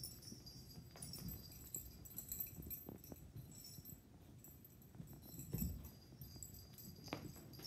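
A puppy, a dog and a cat scuffling together on carpet in play: soft thumps and rustling, with the loudest thump about five and a half seconds in, and faint jingling of collar tags.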